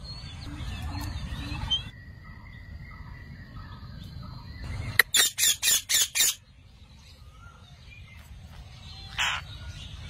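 Rose-ringed parakeets calling. Softer chirps come first, then a run of about five loud, harsh screeches about halfway through, and one more screech near the end.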